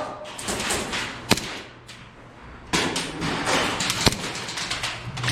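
Airsoft gunfire: two sharp single shots about three seconds apart, over a haze of shuffling movement and clatter.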